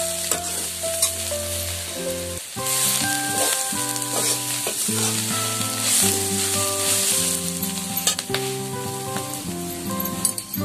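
Greens sizzling in a steel kadhai as they are stir-fried, with a metal spatula scraping and clinking against the pan a few times. Soft, piano-like background music plays underneath.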